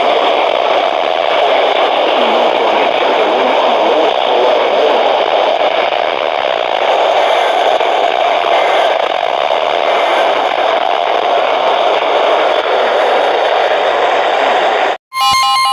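Loud steady hiss of radio static from a weather radio receiver. Near the end it cuts out for an instant, and electronic emergency-alert data tones begin.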